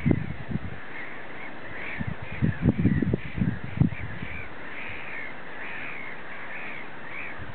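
Repeated short animal calls keep going throughout. A few low thumps come near the start and again about two to four seconds in.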